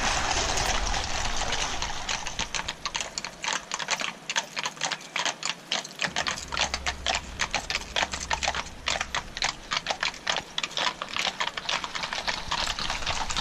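Many shod police horses of a mounted escort walking on pavement: a dense, irregular clatter of overlapping hoofbeats that takes over about two seconds in.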